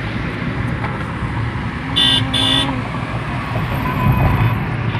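Steady road and engine rumble inside a moving car's cabin at highway speed, with two short car-horn toots in quick succession about two seconds in.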